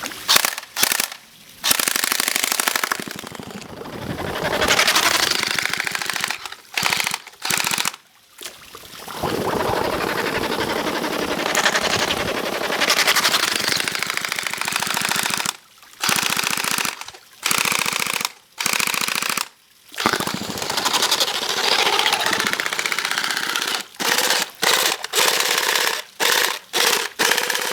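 Umarex G36 electric blowback airsoft rifle firing full-auto while submerged, its motor, gearbox and blowback unit cycling and pumping water. It fires in repeated bursts, from short stabs to runs of several seconds, that start and stop abruptly. The run is rough and strained, "not the happiest sounding gun in the world", though the waterproofed MOSFET keeps it working.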